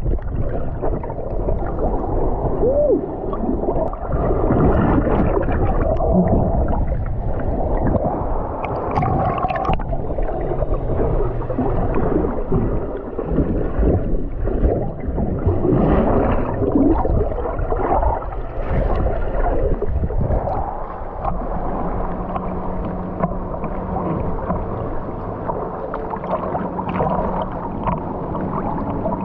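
Muffled sloshing and gurgling of sea water around the microphone, as from a camera held in or under the waves. A low steady hum joins about two-thirds of the way through.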